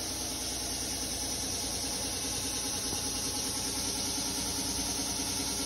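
Steady hum of a running motor, with a hiss over it.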